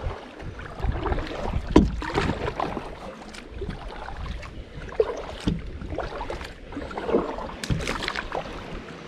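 Kayak paddling: paddle strokes splashing and water washing along the kayak, with a few sharp knocks scattered through.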